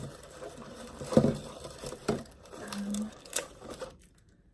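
Paper and plastic stationery packaging rustling and crinkling as it is handled, with a few sharp clicks and knocks, the loudest about a second in.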